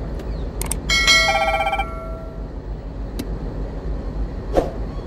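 A railway signal post telephone (SPT box) sounds a short electronic ringing tone with a fast trill, about a second in. A few sharp clicks come before and after it.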